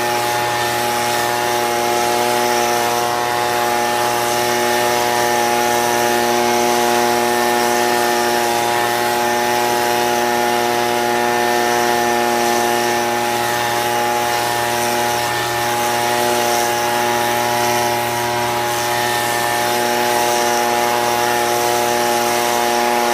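Stihl BG55 handheld leaf blower's small two-stroke engine running at a steady, unchanging speed, its engine note over a rush of air from the nozzle.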